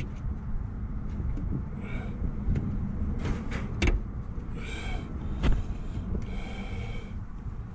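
Hand work on a pickup's headlight bulb and its socket: a few sharp clicks and knocks, the loudest about four and five and a half seconds in, and short high squeaks, over a steady low rumble.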